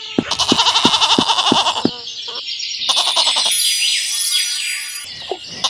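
A goat bleating for about two seconds with a trembling voice, then birds chirping in quick high notes.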